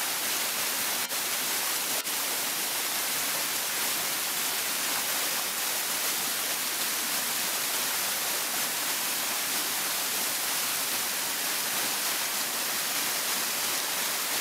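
Small waterfall pouring over a rock face, heard close up as a steady, dense hiss of falling and splashing water. The sound dips briefly twice, about one and two seconds in.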